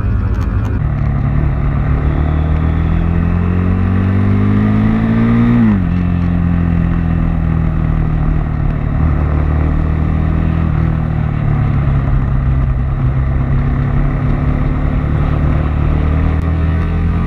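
KTM 390's single-cylinder engine pulling hard, its pitch climbing for about five seconds, then dropping sharply at an upshift and holding a steady pitch while cruising. Wind and road noise run underneath.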